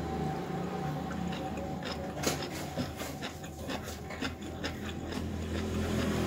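Close eating sounds: chewing and lip smacking, with a run of small wet clicks through the middle, over a steady low rumble of road traffic.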